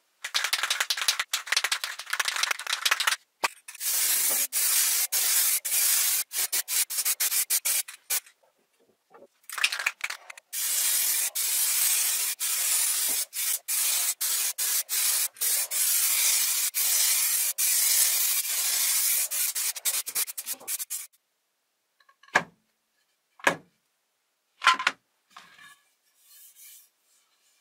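Spray coating hissing onto a carbon fiber wing in long steady stretches, cut off briefly again and again. Near the end come a few light, separate knocks as carbon fiber parts are set down on a wooden floor.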